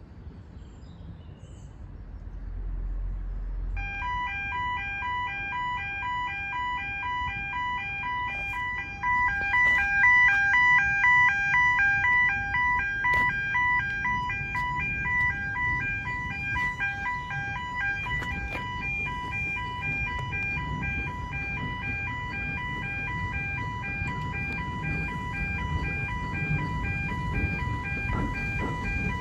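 Railway level crossing audible warning sounding as the crossing closes: an electronic alarm of two alternating tones, pulsing rapidly, that starts about four seconds in and gets louder about nine seconds in.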